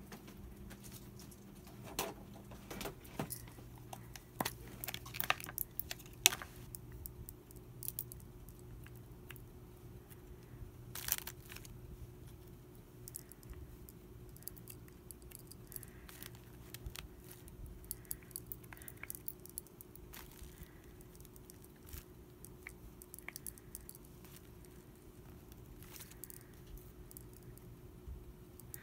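Scattered light clicks and taps of a rubber stamp and plastic ink pad against a journal page, with metal bangle bracelets and rings jangling at the wrist. A faint steady hum runs underneath.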